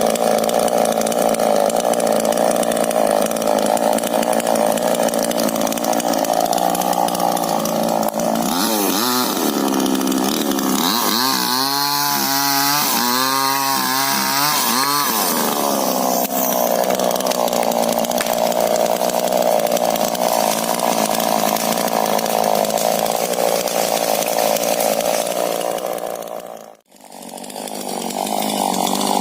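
Chainsaw running hard while cutting a rubber tree. Its engine speed rises and falls several times in the middle. Near the end the sound cuts out sharply for an instant and comes back.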